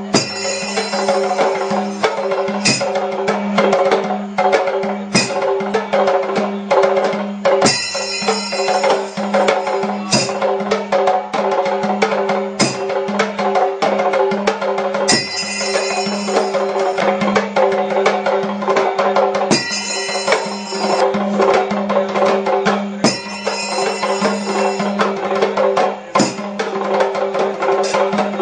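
Ritual percussion ensemble: rope-laced drums played fast by hand, with small hand cymbals. Every few seconds there is a stretch of bright metallic ringing, and a steady low hum runs underneath.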